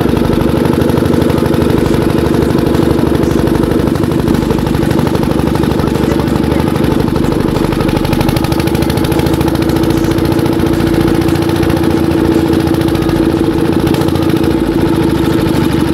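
Single-cylinder diesel engine of an irrigation pump set running steadily, with an even, rapid firing beat.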